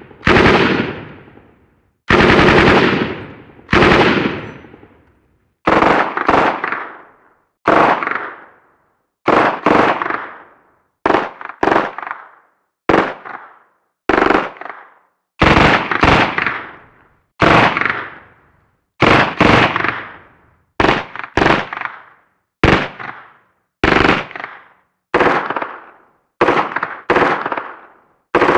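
A run of gunfire sound effects: about thirty short bursts, each starting sharply and dying away within a second or so, with brief silences between them. Some bursts are rapid automatic fire.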